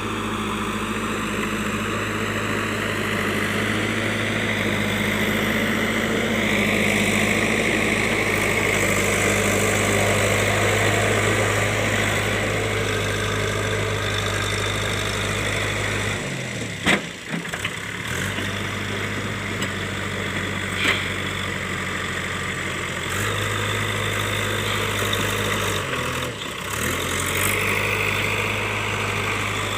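Diesel engine of a JCB 3DX backhoe loader running steadily at a low, even speed. A sharp knock comes about 17 seconds in and another about 21 seconds in, and the engine hum drops out briefly twice.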